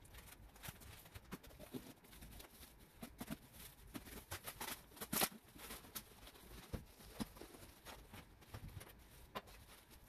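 Plastic and cardboard packaging being pulled apart and handled on a workbench: a scatter of faint crinkles, rustles and light knocks, with one louder crackle about five seconds in.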